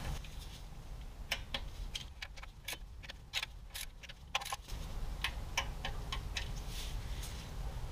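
Torque wrench ratcheting on a socket, a scatter of sharp metallic clicks at irregular spacing, sometimes several a second, as bolts are run down to an 84 inch-pound torque setting.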